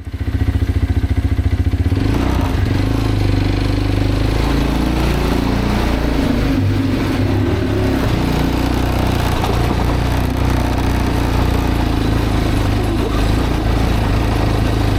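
Road motorcycle's engine running, with a rapid throbbing pulse for the first two seconds, then a steadier note that wavers a little in pitch.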